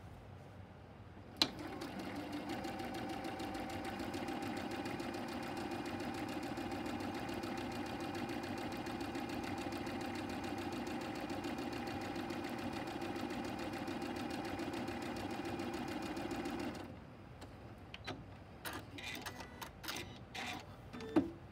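Electric sewing machine stitching a seam through fabric and foundation paper at a steady speed for about fifteen seconds, starting with a click about a second in and stopping abruptly. A few scattered clicks follow near the end.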